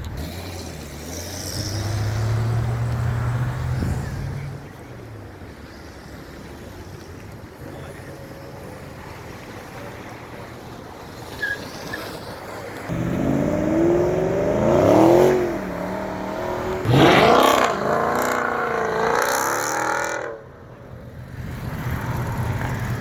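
A car engine revved hard several times in the second half, its pitch climbing and dropping with each blip. A lower, steady engine note runs for the first few seconds.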